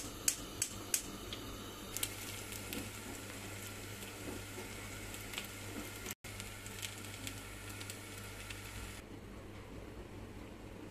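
Yufka pastry frying in oil in a covered pan: an even sizzle with sharp crackles in the first second. The sizzle drops away near the end.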